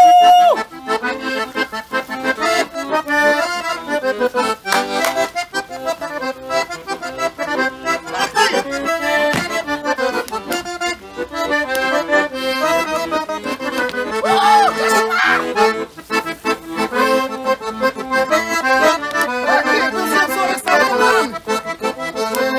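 Piano accordion playing a quick dance tune, with fast-changing notes and chords throughout.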